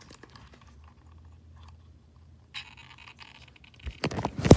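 Hands handling a radio-control truck's plastic chassis and wiring: small scattered clicks and scrapes, then a louder burst of clatter near the end.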